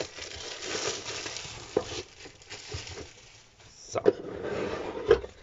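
Clear plastic shrink-wrap crinkling as it is peeled off a cardboard craft-kit box, then cardboard rustling with a sharp knock about five seconds in as the box is handled.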